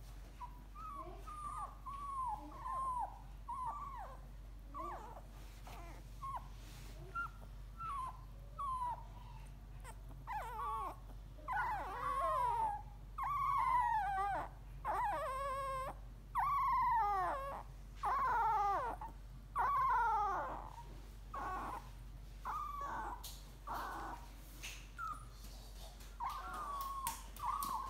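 Young beagle puppies whimpering: a long string of short, high whines, most falling in pitch, about one a second. They start faint and grow louder and longer about ten seconds in, then soften again after about twenty seconds.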